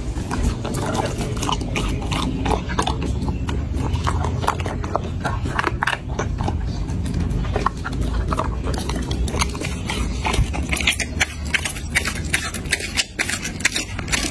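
Chocolate Labrador retriever eating raw food from a tray: wet chewing with many sharp crunching bites, which come thicker in the second half.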